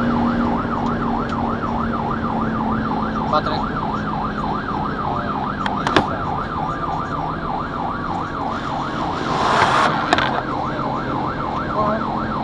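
Fire engine siren in a fast yelp, rising and falling about three times a second, heard from inside the cab over the steady hum of the truck's engine. A short hiss breaks in about nine and a half seconds in.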